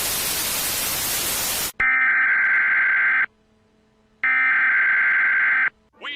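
A burst of static hiss, then two long buzzy electronic tones with a gap of about a second between them, thin like a tone heard over a telephone line.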